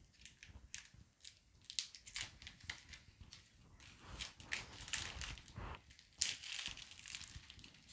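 Plastic wrapping crinkling and tearing as it is pulled off a boxed tarot deck, in irregular crackles and rustles.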